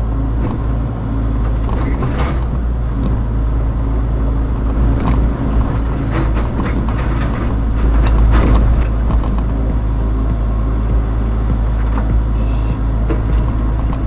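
Case excavator's diesel engine running steadily, with irregular knocks and cracks between about two and nine seconds in as logs and brush are handled.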